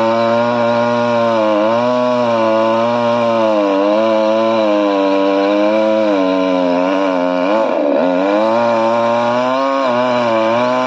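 Two-stroke chainsaw running hard while cutting a tree, its engine note wavering up and down as the chain bites into the wood. The pitch sags deeper about three-quarters of the way through, then picks back up.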